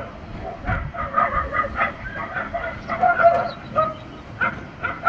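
A pack of dogs barking and yipping over one another, many short calls in quick, uneven succession.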